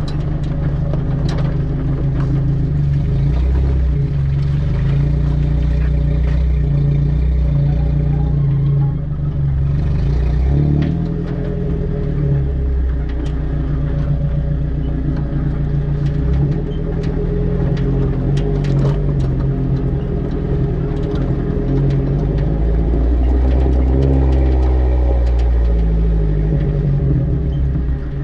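Vehicle engine running steadily at low speed over a rocky, holed track, heard close to the rear bumper with heavy low rumble. Engine speed shifts about ten seconds in and again around twenty-four seconds, and scattered knocks and clatter of tyres and suspension on rocks run through it.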